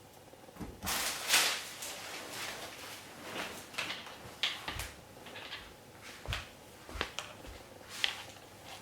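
Close handling noise: a rustle about a second in, then a string of scattered knocks and clicks as something is handled.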